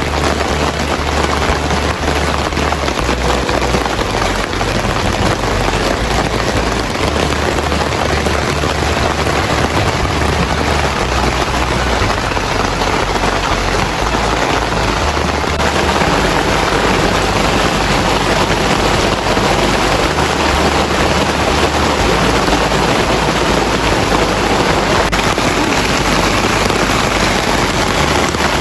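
Heavy rain falling, a loud steady hiss with no letup.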